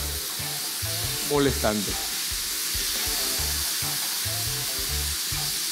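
Strips of picanha sizzling steadily in a nonstick frying pan, frying in their own rendered fat with no oil added.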